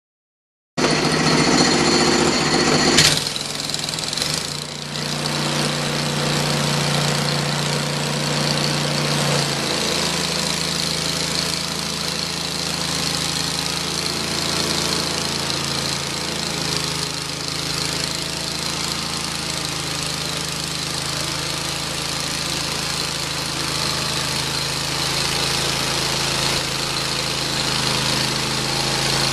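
Hud-Son Oscar 36 portable bandsaw mill running steadily, its engine and band blade sawing soft maple, with a steady high whine over the engine note. The sound starts abruptly about a second in, with a sharp knock about three seconds in.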